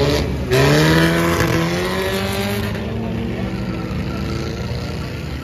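Demolition-derby car engine revving hard about half a second in, its pitch climbing, holding, then slowly easing off, with a hiss of tyre noise over it.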